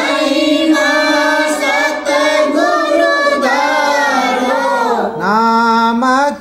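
Singing of a Hindi devotional hymn in praise of the Satguru, with long held and gliding notes between the lines of the lyric.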